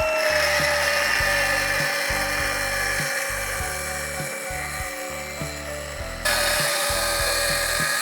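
A power tool running with a steady whine, over background music; its sound jumps louder and brighter about six seconds in.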